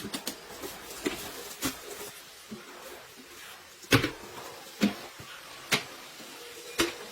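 A series of irregular knocks and clicks, the loudest about four seconds in, then roughly one a second.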